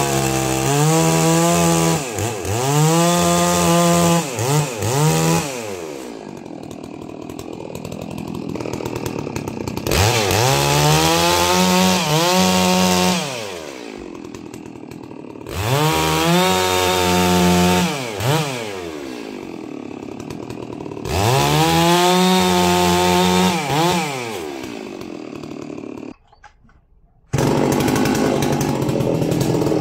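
Holzfforma G660 chainsaw's two-stroke engine, new and being broken in, revved to full throttle in repeated bursts as it cuts thin logs, the revs sagging under load and dropping back to idle between cuts. Near the end the sound cuts out for about a second, then a steady rougher engine noise follows.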